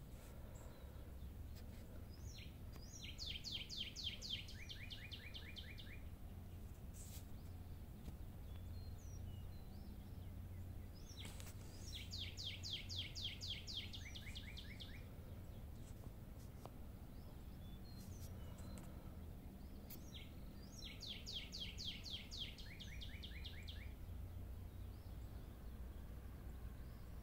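A songbird singing three times, about every nine seconds: each song a quick trill of repeated high notes that drops into a shorter, lower trill at the end. A steady low hum runs underneath.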